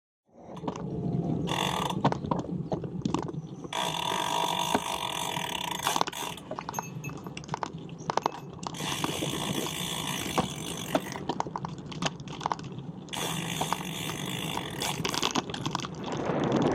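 Bicycle freewheel hub ticking and buzzing in stretches of a couple of seconds while coasting, falling away in between when pedalling resumes, over steady road and wind rumble.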